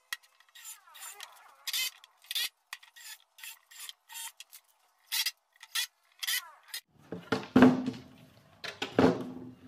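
Pine boards knocked and handled in a string of short, light clicks and taps. Near the end, two longer, heavier scraping rubs as a wooden frame is shifted on the workbench.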